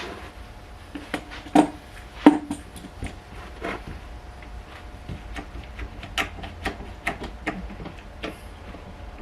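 Irregular clinks, clicks and knocks of hand tools and metal parts being handled on a workbench, two knocks early on louder than the rest, over a steady low hum.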